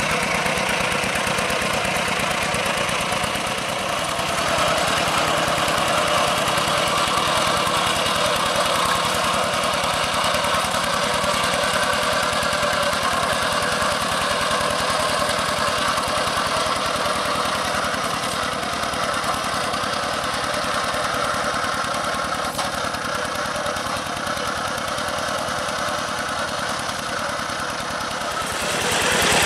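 Single-cylinder diesel engine of a two-wheel hand tractor running steadily under load, pulling a cage-wheel harrow through a paddy field, with a fast, even chugging. It gets louder near the end.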